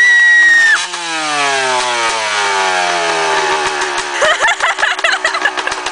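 Dirt bike engine freshly kick-started: it revs high for about a second, then the revs fall steadily over a few seconds and settle into a steady idle.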